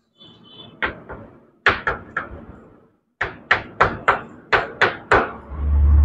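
Chalk on a blackboard while words are written: a run of sharp taps and short scrapes in irregular clusters, with brief pauses between letters.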